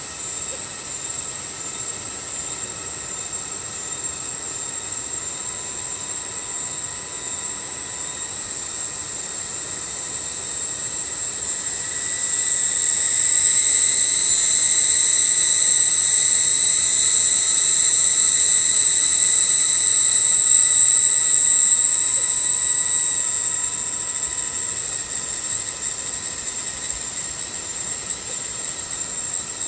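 A cicada chorus giving a high, steady, ringing whine that swells much louder about twelve seconds in, holds for about ten seconds, then eases back down.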